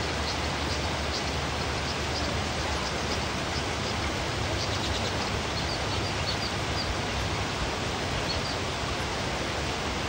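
Steady rushing of a stream's flowing water, with faint, short, high bird chirps scattered through the first several seconds.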